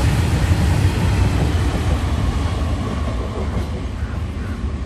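Freight train of hopper wagons rolling past, a steady low rumble of wheels on rails that slowly gets a little quieter.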